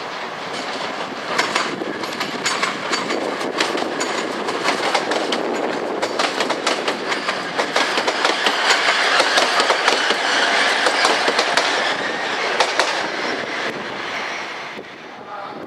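A train passing along the track, its wheels clicking rapidly over rail joints and points. The sound swells to its loudest past the middle and then dies away near the end.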